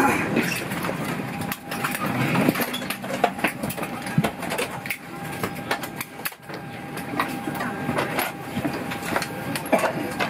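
Cabin noise inside a Ryanair Boeing 737 at the gate: a steady hum with irregular clicks and knocks, and faint voices.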